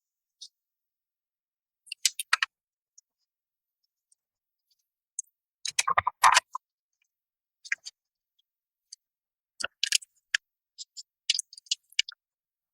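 Scattered sharp metal clicks and clinks from hand tools, singly and in short clusters, as the bolts of an air valve assembly on an air-operated double-diaphragm pump are torqued down.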